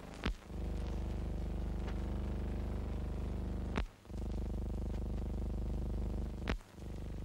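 Steady electrical hum with a buzzy stack of overtones, the noise of a transfer from silent film. It is broken three times by a sharp click, roughly every three seconds, where the film is spliced between shots, and the hum dips for a moment after each click.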